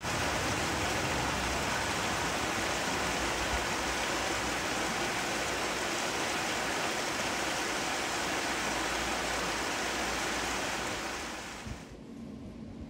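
Shallow rocky river rushing over stones and small rapids, a steady even rush of water that fades away near the end.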